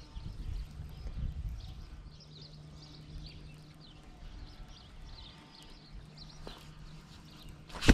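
Baitcasting reel being cranked to retrieve a small swimbait, a low steady whir that stops briefly about six seconds in. A single sharp knock comes at the very end.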